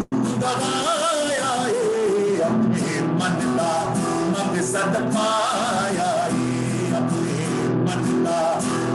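A man singing a Punjabi Sufi song in long, wavering, ornamented phrases over steady acoustic guitar accompaniment. The sound drops out for an instant at the very start.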